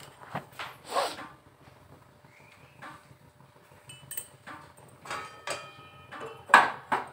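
Metal spatula scraping and knocking against a steel wok as oil is spread in the pan, in short irregular strokes, the loudest about six and a half seconds in.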